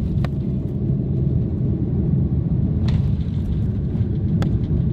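Steady low rumble inside the cabin of an Airbus A330-200 rolling on the ground after landing, with a few light knocks.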